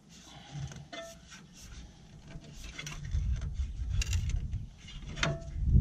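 Thin sheet steel being bent by hand around a form: several sharp clanks, some with a brief metallic ring, with scraping and rubbing. A low rumbling handling noise grows louder over the second half.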